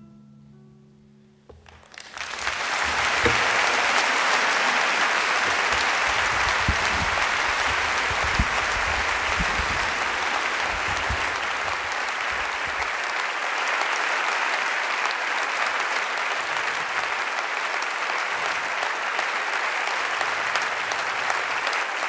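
The last plucked notes of a kora, the West African harp-lute, die away, then about two seconds in an audience breaks into steady applause.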